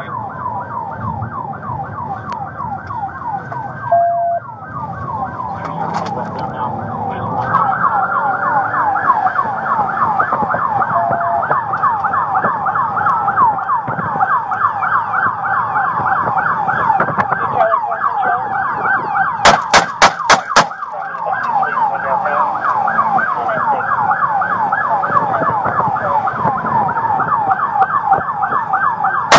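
Police car siren in a fast, rapidly repeating yelp, heard from inside the cabin over engine and road noise. About two-thirds of the way through, five handgun shots come in quick succession within about a second, fired from inside the car through the windshield.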